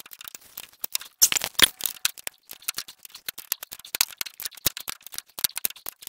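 Socket ratchet clicking in quick, irregular runs of small metal clicks as the front spindle nut is run down on a new wheel hub, brought snug but not over tight.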